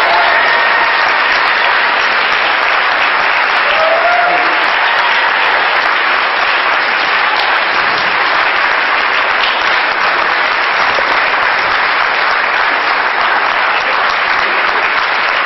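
Large audience applauding steadily, many people clapping at once with no break.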